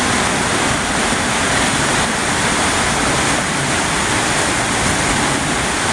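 River water rushing past, a loud, steady, even noise.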